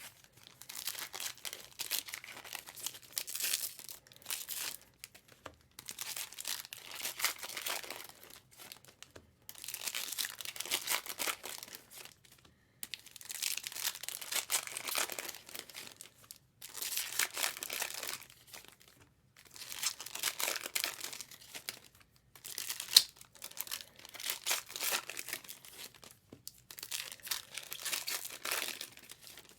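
Plastic-foil trading card pack wrappers being torn open and crumpled, one pack after another: about eight crinkling bursts of two to three seconds each with short pauses between.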